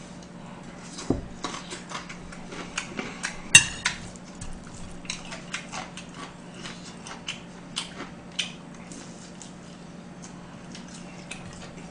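Close-up eating sounds: chewing mung bean pancake, with scattered light clicks of chopsticks against dishes and one sharper clink about three and a half seconds in. A faint steady hum runs underneath.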